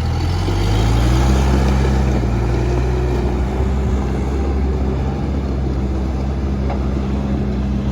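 New Holland LB75B backhoe loader's diesel engine revving up in the first second, then running steadily at raised speed.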